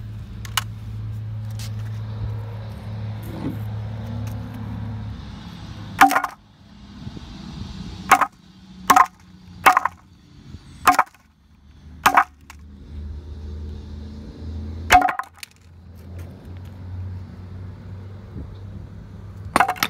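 A hatchet chopping down on a Casio pocket calculator lying on a wooden board: about eight sharp, ringing strikes at uneven intervals, the first about six seconds in and the last near the end. A steady low hum runs beneath.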